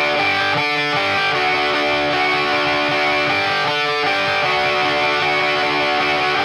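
Opening of a power-pop song on distorted electric guitar: long, held chords ringing out, changing twice about three seconds apart, with no drums.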